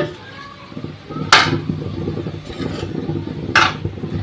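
Metal spatula stirring soaked sabudana (tapioca pearls) in an aluminium kadai, with two short, sharp scrapes of the spatula against the pan, about a second and a half and three and a half seconds in.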